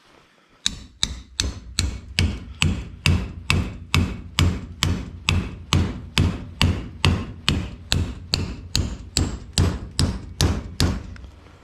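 Hammer pounding steadily on scrap, an even run of nearly thirty blows at about three a second, stopping shortly before the end.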